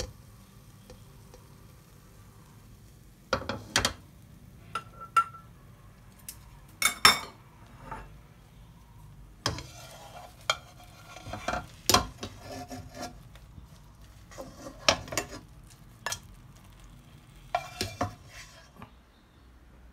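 Slotted spatula scraping and knocking against a nonstick wok as soft scrambled eggs are scooped out, in short separate bouts of scrapes and taps over a low steady background.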